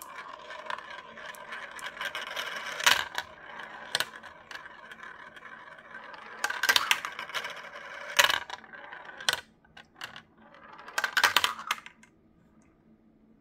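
Marbles rolling through the translucent plastic funnels and spiral tracks of a marble run: a steady rolling whir broken by sharp clacks as marbles drop and strike the pieces. The rolling stops about twelve seconds in.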